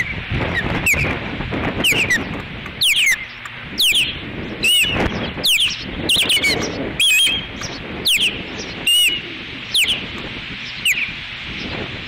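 Ospreys giving alert calls: about a dozen short, sharp, falling whistles, roughly one a second, over steady wind noise on the microphone. The calls signal alarm at something flying overhead.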